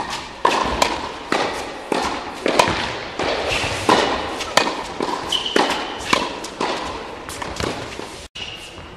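Tennis balls struck with rackets and bouncing on an indoor hard court in a fast rally: sharp impacts roughly every half second, echoing in the hall.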